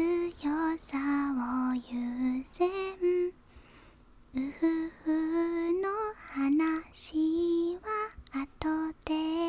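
A woman singing a song softly in a small voice, with no accompaniment: short, evenly held notes in phrases, with a brief pause about four seconds in.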